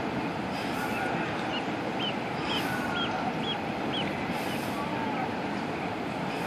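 Steady outdoor background noise, a mix of rumble and hiss. Through the middle a bird gives a run of about six short, high chirps, roughly two a second.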